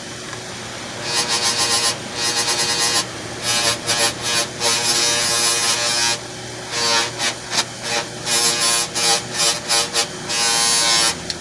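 A small electric power tool running with a steady hum, breaking into repeated rasping bursts, some long and some short, as metal is pressed against it in finishing work.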